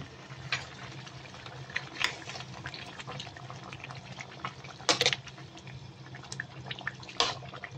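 A metal spoon stirring coconut milk through a wok of bamboo-shoot stew: wet sloshing with small clicks and scrapes, and two louder knocks of the spoon against the pan, one a little past halfway and one near the end.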